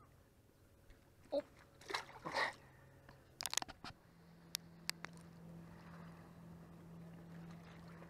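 Rustling and crunching of shoreline brush and hands handling a bluegill, with a few sharp clicks, then a faint steady low hum from about halfway through.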